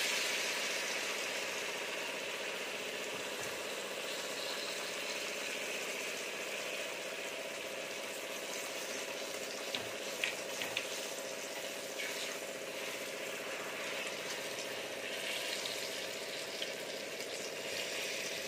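A battered eggplant slice (beguni) deep-frying in hot refined vegetable oil in a steel kadai, with a steady sizzle. About ten seconds in there are a few light clicks as a wire skimmer touches the pan.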